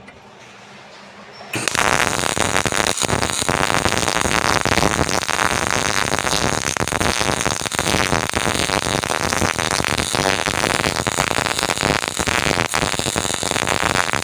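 MIG welding arc struck about a second and a half in, then burning with a steady, constant crackle like potatoes frying in oil: the proper sound of correctly set wire speed and heat.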